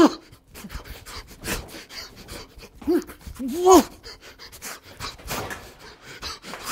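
Short vocal calls, each rising and then falling in pitch. There are two or three close together a few seconds in, among scattered quick clicks and taps.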